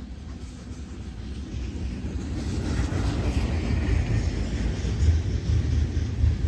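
Freight train cars rolling past on the track: a steady low rumble of steel wheels on rail, growing louder about two and a half seconds in as the cars pass close.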